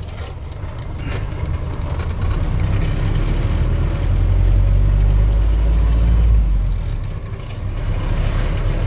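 Truck engine and road noise heard from inside the cab while pulling away: a loud low drone that builds over the first few seconds, dips briefly about seven seconds in, then picks up again.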